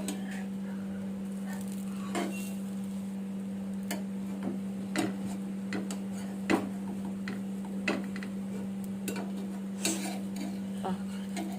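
Metal spatula tapping and scraping on a dosa tawa, a dozen or so sharp irregular clicks, over a steady low hum.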